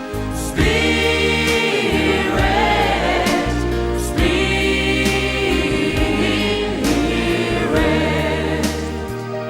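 Christian worship song between sung verses: choir singing long held notes without clear words over a steady bass accompaniment.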